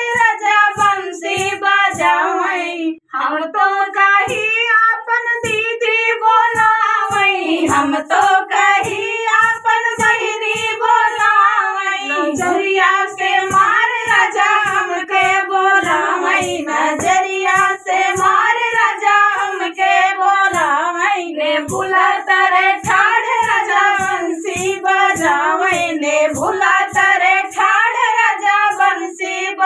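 A woman singing a dehati folk dance song (nach geet) in a high voice, with handclaps keeping an even beat of about two a second.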